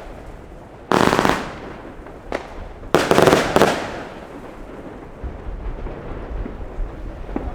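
Albert Feuerwerk King of Bling 100-shot fireworks cake firing its last shots: two loud crackling bursts about two seconds apart, with a small pop between them, then the cake falls quiet.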